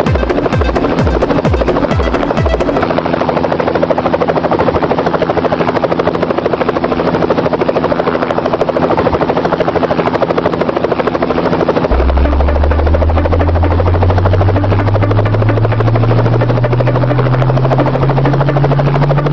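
Yuxiang F06 EC135 RC helicopter flying: a steady, fast rotor buzz. About two-thirds of the way through, a low hum comes in and rises slowly in pitch.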